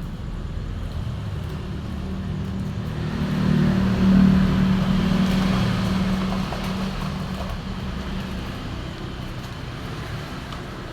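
Road traffic with an engine running under it; one motor vehicle grows louder, passes close about four seconds in, then fades away.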